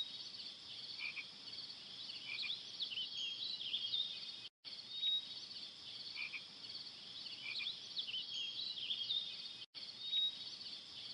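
Steady high-pitched chorus of frogs and insects with short chirping calls over it, cutting out completely for an instant twice.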